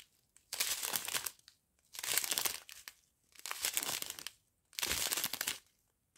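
Strip of clear plastic sachets of round diamond-painting drills being handled and turned, the plastic crinkling in four short bursts about a second and a half apart.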